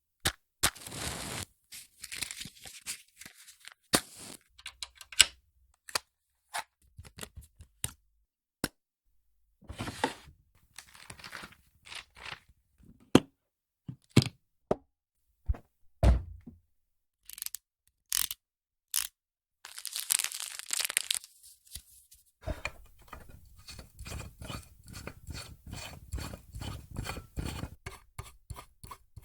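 A string of short household sound effects one after another: sharp clicks, knocks and thunks, tearing and scraping sounds, and a brief hissing burst. Near the end comes a longer run of quick, evenly spaced ticking or rattling, several ticks a second.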